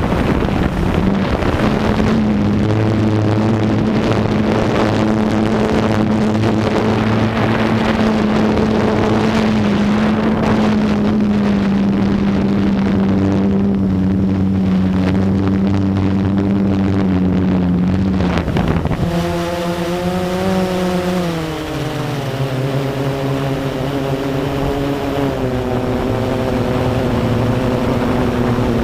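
Blade 350QX quadcopter's brushless motors and propellers making a steady pitched buzz. The pitch shifts and rises about two-thirds of the way through, then drops lower shortly after as the throttle changes.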